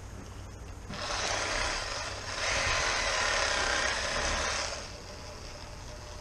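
Electric fillet knife running, its reciprocating blades buzzing as they cut through a sheepshead. It starts about a second in, gets louder partway through the cut and stops a little before the end.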